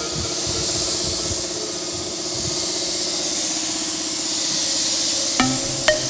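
Background electronic music in a quiet breakdown: a held synth note under a steady hissing noise layer, with short plucked synth notes coming in about five seconds in.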